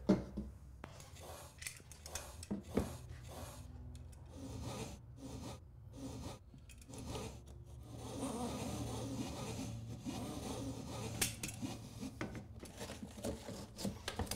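Quiet hand-tool work on a plasterboard wall: scraping and rubbing with scattered light clicks as the damaged area is marked along a spirit level and cut out, with a denser stretch of scraping about eight seconds in.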